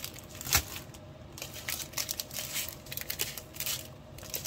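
Small clear plastic bags of diamond-painting drills crinkling and rattling as they are handled and tossed onto a table, with a louder knock about half a second in.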